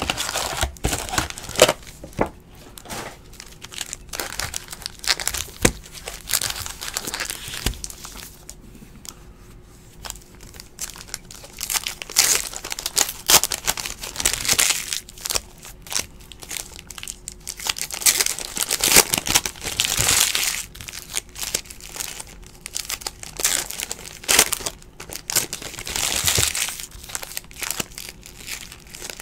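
Foil wrappers of Donruss basketball trading-card packs crinkling and being torn open by hand, in irregular bursts.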